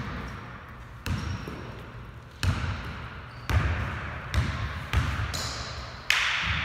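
Basketball bouncing on a hardwood gym floor: about six loud bounces, irregularly spaced roughly a second apart, echoing in the large hall.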